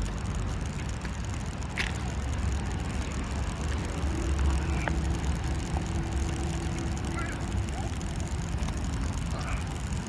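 Steady low rumble of street traffic, motorbikes and cars, with a faint engine hum held for a couple of seconds midway and a few light knocks.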